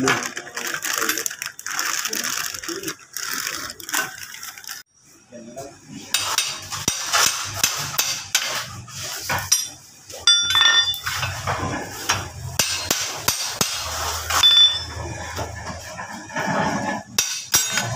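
Steel hand tools working a Mitsubishi L300 gear-shift housing: a run of metal clicks, knocks and scrapes with a few short ringing clinks. A hammer and flat bar are driving out the shift shaft together with its crushed bushing. The sounds break off briefly about five seconds in.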